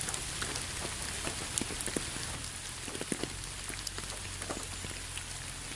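Steady rain falling, with scattered single drops ticking through the even hiss.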